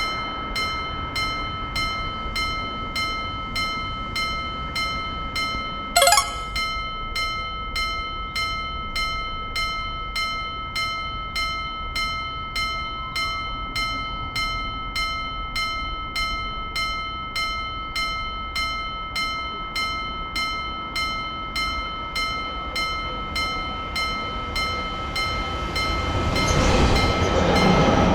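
Japanese level-crossing warning bell ringing steadily, a little under two strikes a second. A brief sharp blast cuts in about six seconds in, and near the end a train begins rushing past.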